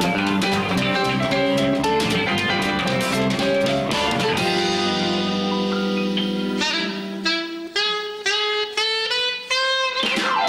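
A small band with guitar, keyboard, drums and saxophone plays a song's instrumental introduction. About four seconds in, the band thins to a held chord under a solo phrase of short separate notes, which ends in a falling glide as the full band comes back in.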